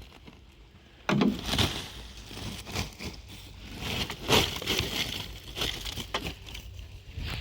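Irregular crunching and cracking noises, starting loudly about a second in and recurring every second or so.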